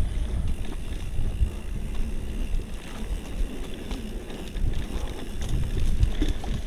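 Wind buffeting the microphone with a gusty low rumble, over irregular rattling and knocking from a mountain bike moving along a rough trail.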